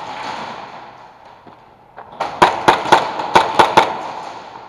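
Airsoft guns firing a rapid, uneven string of about ten sharp cracks over a second and a half, starting about two seconds in. A brief noisy hiss comes first.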